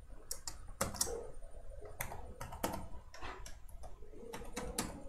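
Typing on a computer keyboard: a string of separate keystroke clicks at an uneven pace.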